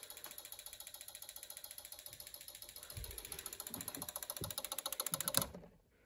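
A Snap Circuits fire alarm circuit clicking rapidly and evenly, about a dozen clicks a second, growing a little louder and then cutting off suddenly about five and a half seconds in. A few soft thumps sound in the second half.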